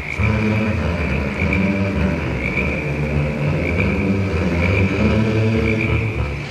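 A deep rumbling drone, shifting in pitch every half second or so, with a steady high ringing tone held above it.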